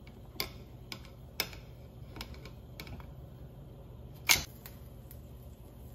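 Kitchen tongs clicking and tapping against a glass cooking pot as a beef shank is gripped and lifted out, about eight sharp clicks with one loud knock a little past four seconds, over a faint steady hum.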